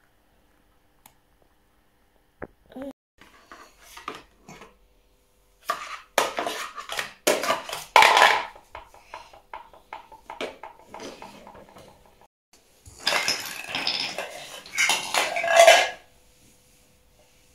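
Hard plastic toys clattering and knocking against each other and a hard floor as a toddler handles and tips them: a few scattered knocks first, then two busy bouts of rattling, the second near the end.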